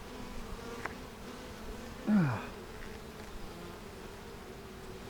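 Honeybees buzzing steadily around an opened hive, a faint continuous hum. About two seconds in a person gives one short grunt that falls in pitch, the loudest sound here, and there is a faint click a little before the first second.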